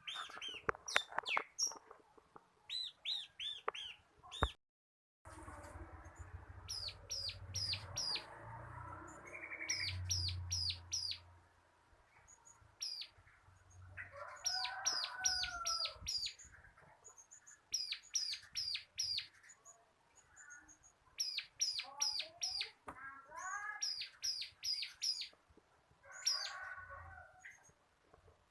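Bar-winged prinia (ciblek) singing: quick runs of sharp, high chirps repeated again and again, broken by some lower warbled notes.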